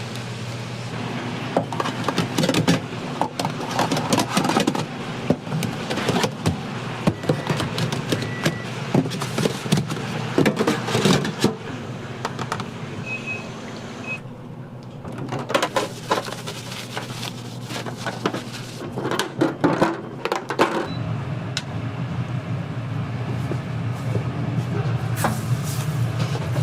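Commercial kitchen work: irregular clatter and knocks over a steady low hum, with the hum growing steadier and louder near the end.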